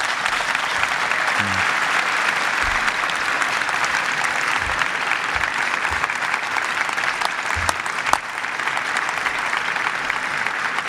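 Audience applauding, a dense steady clapping that eases slightly about eight seconds in.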